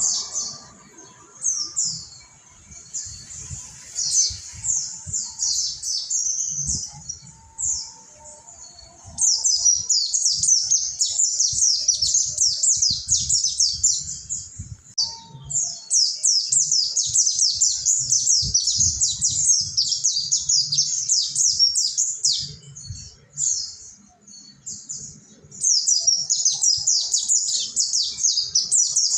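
Mountain white-eye singing rapid, fast-running phrases of high chirps in long bursts, with sparser chirping between them.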